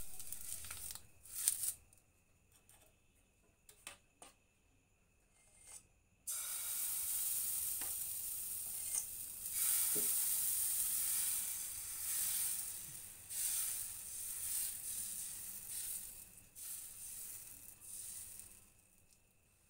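Patishapta batter sizzling in a hot greased pan, setting in suddenly about six seconds in and hissing steadily as it is spread with a spoon. Before that, a few short scrapes and taps as the pan is wiped by hand.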